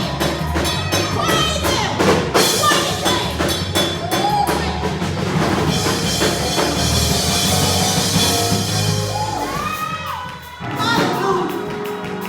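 Live gospel praise music: a band with drum kit keeping a steady beat under singing voices, dipping briefly about ten seconds in before picking up again.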